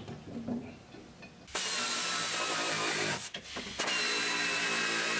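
A power tool run in two bursts of about one and a half and two seconds, each starting and stopping abruptly with a steady whine, undoing the bolts that hold the engine's cooling fan.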